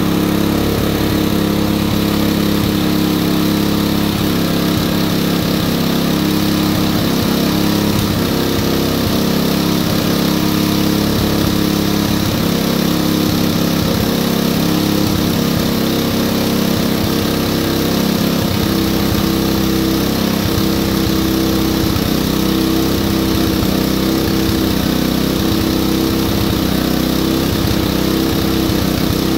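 Engine of an open-frame portable generator running at a steady speed with an even hum, under load from a fan heater.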